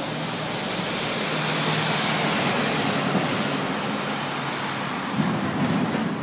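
A vehicle passing on the street: tyre and engine noise swells over about two seconds and then fades.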